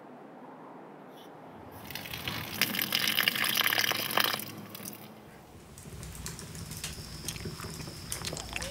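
Water poured from a canteen, splashing and gurgling for about three seconds before it stops.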